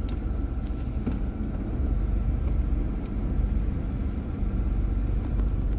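Low, steady rumble of a car's engine and tyres heard from inside the cabin while the car is moving.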